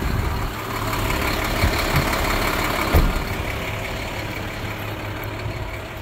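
Truck engine of an International Workstar sprayer idling steadily, with wind noise on the microphone. A few soft thumps come about two and three seconds in.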